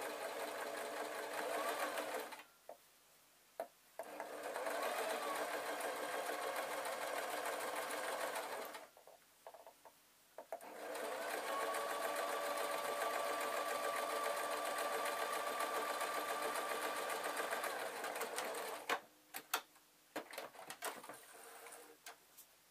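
Electric sewing machine stitching a seam in three runs at a steady speed, stopping briefly twice in between. A few sharp clicks follow near the end.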